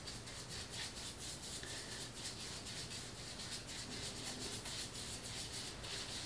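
Foam sponge brush scrubbing a coat of Mod Podge back and forth across foam core board: a quick, even run of soft rubbing strokes.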